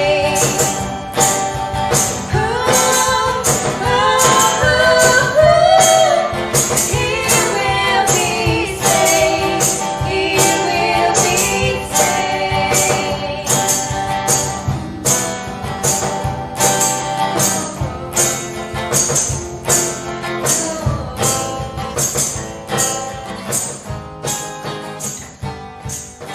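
Gospel praise song: singing over guitar with a steady tambourine beat, fading out at the end.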